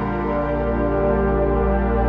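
Background music: slow ambient music with long held chords over a deep bass note.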